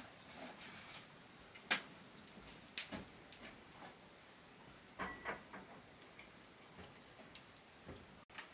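Scattered light clicks and taps at irregular intervals over a faint hiss, the two sharpest in the first half.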